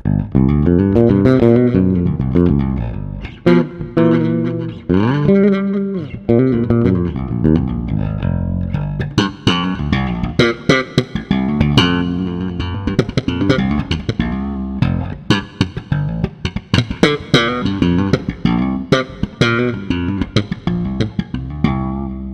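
Passive Strinberg electric bass with Malagoli pickups played through a bass preamp pedal that has just been switched on: a busy line of quick plucked notes, with a few notes sliding in pitch.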